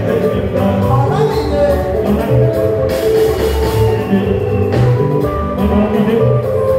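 Live band music with a steady, repeating bass line and sustained melody notes, with some singing.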